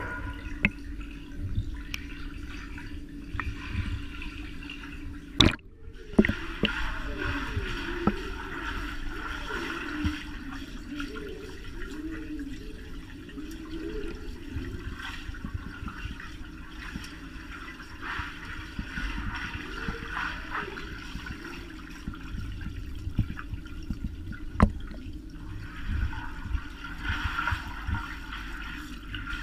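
Pool water sloshing and bubbling, muffled as heard through an underwater camera housing, stirred by dogs swimming; a few sharp clicks, with one loud click and a brief dropout about five and a half seconds in.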